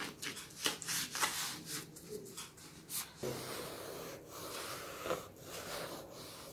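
Foam sponge wiping varnish along a wooden frame's edge: a run of quick, soft rubbing strokes, dying down to fainter handling after about three seconds.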